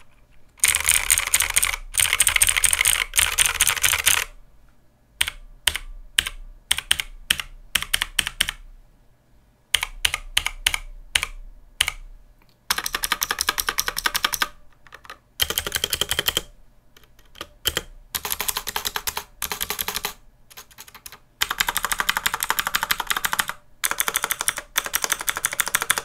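Anko Mini 60% mechanical keyboard with Xinda blue clicky switches and a plastic plate and case, typed on in fast bursts of loud clicking with short pauses between. In the middle there is a stretch of slower, separate key presses.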